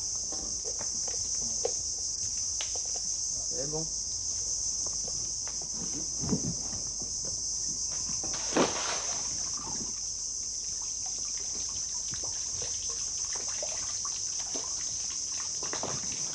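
Steady, high-pitched drone of a tropical insect chorus, with faint voices and a few soft knocks underneath.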